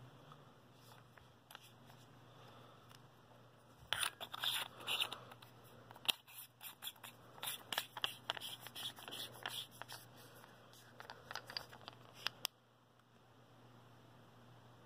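Hands handling a tactical flashlight: a run of quick clicks, scrapes and crinkles for about eight seconds that stops abruptly, over a faint low hum.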